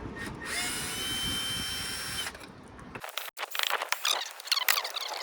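Cordless drill-driver spinning up and running steadily for about two seconds, then stopping, while backing out the screws of an old camper door lock. This is followed by a series of sharp clicks and scrapes of hand work on the lock.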